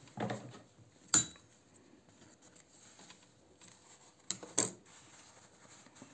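Sharp metallic clicks of handling at the sewing machine: one loud click about a second in, then two quick snips near the end as scissors cut the thread. A brief murmur of voice at the very start.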